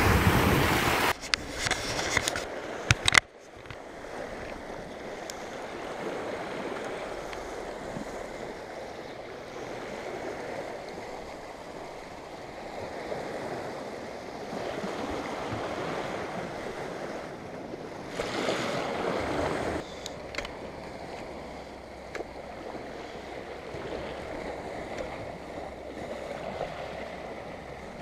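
Sea water washing and lapping against shore rocks, with wind on the microphone: a steady rush that swells louder for a couple of seconds past the middle. A louder rush with a few sharp clicks at the start cuts off abruptly about three seconds in.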